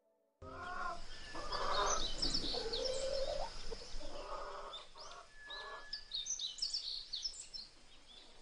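Birds calling: a string of short, lower pitched calls, one of them sliding in pitch, among quick high chirps of small birds, starting about half a second in.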